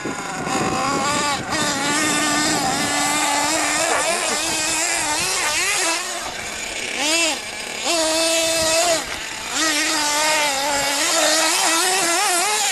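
Small nitro engine of a radio-controlled truck revving hard and rising and falling in pitch over and over, with a few short throttle lifts, as the truck drives up and over dirt mounds.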